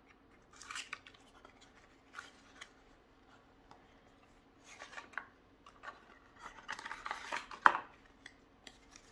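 A deck of plastic-coated playing cards being handled, with scattered rustles and clicks of the cards. A denser run of rustling builds near the end and peaks in one sharp crack of the cards.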